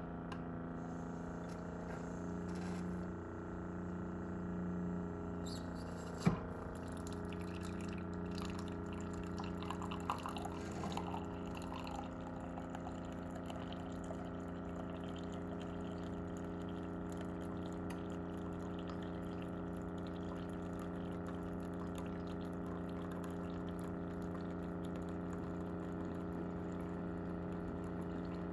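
Keurig single-serve coffee maker running its brew cycle on a hot cocoa pod: a steady pump hum with hot liquid streaming into the mug. A single sharp click about six seconds in.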